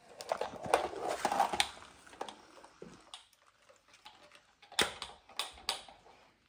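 Hard plastic toys clattering and clicking as they are handled, a dense run of clicks and rustling in the first two seconds, then a few sharp clicks about five seconds in.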